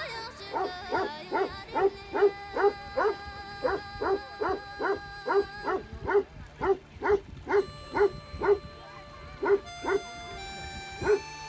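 Tibetan mastiff barking over and over, about two or three barks a second, with a short break near the end; background music with long held notes plays underneath.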